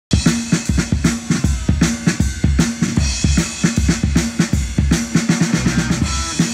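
Live rock band playing without vocals, the drum kit's steady beat of kick and snare loudest, with low bass notes under it.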